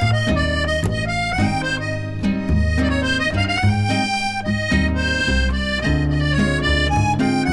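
Instrumental background music: a held melody line over plucked chords and a moving bass line.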